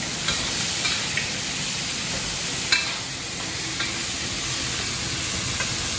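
Pork spare ribs and chestnuts stir-frying in a wok with a steady sizzle, stirred with a spatula that clicks against the pan a few times; the loudest click comes nearly three seconds in.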